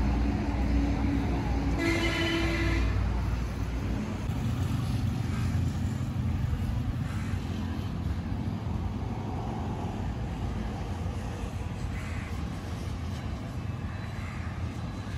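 Motorcycle on the move on a highway: a steady low rumble of wind, engine and road noise. A vehicle horn honks once for about a second, about two seconds in.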